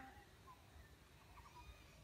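Near silence, with a few faint, short bird chirps.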